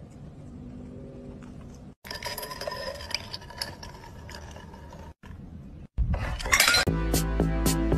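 Clinking and knocking with ringing tones in the middle, like glass or dishes. Near the end, music with a steady beat begins.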